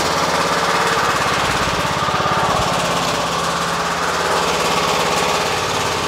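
Husqvarna riding mower's engine running steadily with an even pulse, just after being jump-started.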